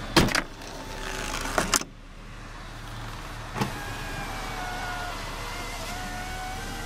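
A car door shuts with a thud just after the start, followed by a few clicks. From about two seconds in, the 1990 Toyota Camry's electric power window motor runs with a steady, slightly wavering whine.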